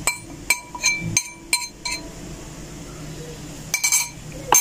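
Metal fork clinking against a ceramic plate while knocking rolled oats off it into a plastic blender cup: a quick run of sharp clinks with a short ring, then a pause and a few more clinks near the end.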